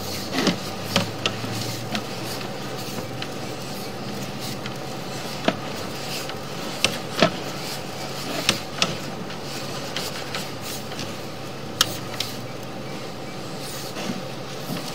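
A sewer inspection camera's push cable being worked into a pipe, giving scattered sharp clicks and knocks over a steady low hum.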